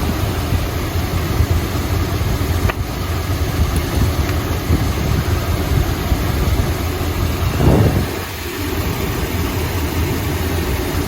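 Chrysler 440 V8 idling steadily, with a short louder burst about two-thirds of the way through.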